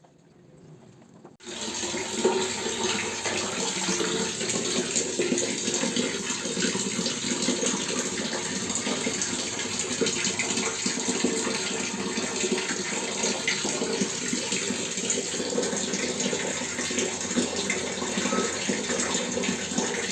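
Water running steadily from a tap, starting suddenly about a second and a half in.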